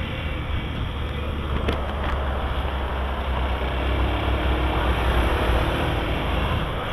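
Motorcycle running steadily under way, its engine's low note under road noise. Two brief clicks come about two seconds in.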